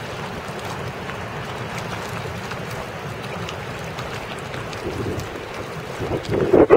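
Steady wind noise on the microphone over open water, with louder buffeting in the last half second.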